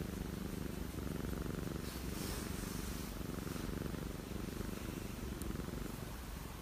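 Domestic cat purring steadily while being scratched on the cheeks and head.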